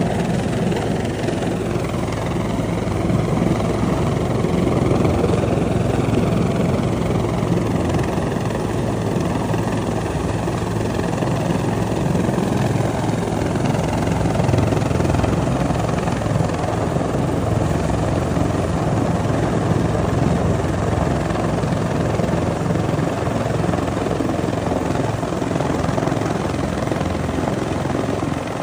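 Rescue helicopter hovering close overhead during a hoist winching: steady, loud rotor beat and engine noise, with a fainter higher whine that wavers in pitch in the first half.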